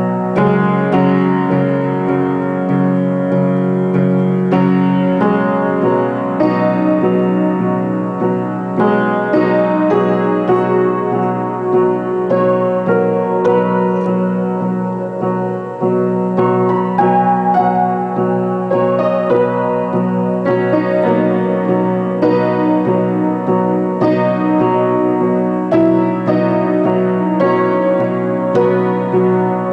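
Ludwig upright piano played with both hands: a continuous passage of overlapping held chords and melody notes.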